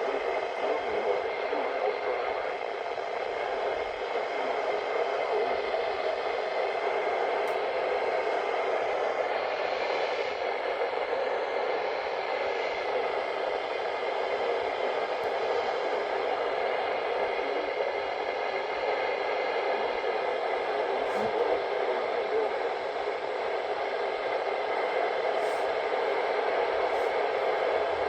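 Steady static hiss from a weather radio receiver.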